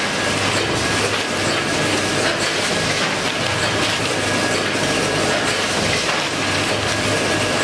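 Automatic vertical weighing and packing machine for puffed snacks running steadily, with faint clicks and rattles from its mechanism and output conveyor as filled bags of fried fish skin come off.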